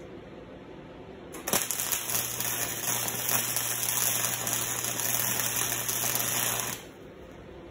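Wire-feed welding arc crackling and sputtering for about five seconds as it welds steel chain links, starting about a second and a half in and cutting off near the end, with a steady low hum beneath it.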